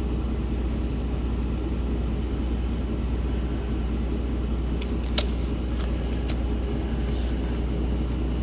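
Steady low rumble of a running vehicle engine, with a few short clicks about five and six seconds in.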